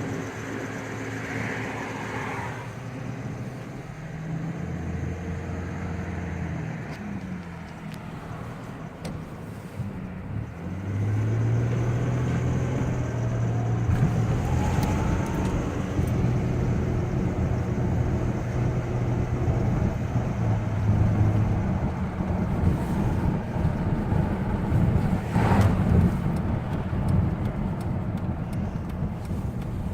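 2000 Ford Ranger's 3.0L V6 running with steady engine tones, then growing louder about a third of the way in as it comes under acceleration, with a faint rising whine soon after. This is the acceleration noise the owner is chasing: loudest on a cold engine and gone at full operating temperature, cause not found.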